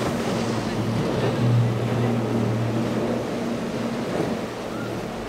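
Twin Mercury 250 outboard motors on a center-console boat running steadily at speed, a constant engine drone over the rush of water off the hull.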